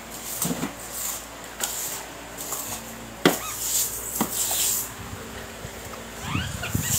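Broom sweeping water across a wet tiled floor in repeated swishes, with two sharp knocks in the middle.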